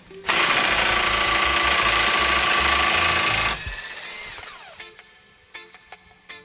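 Handheld power tool runs at full speed for about three seconds, then its motor winds down with a falling whine.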